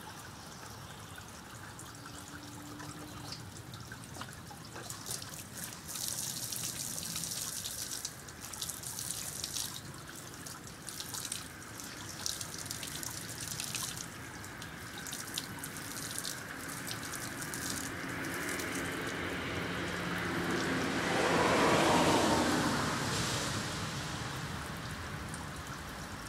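Spring water trickling and splashing from the spring's outflow while a plastic specimen container is filled under it. The splashing swells louder for a few seconds about three-quarters of the way through.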